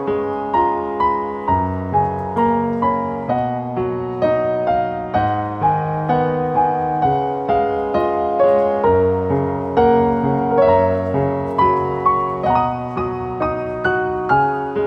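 Gentle solo piano music, a steady flowing pattern of notes at about two a second.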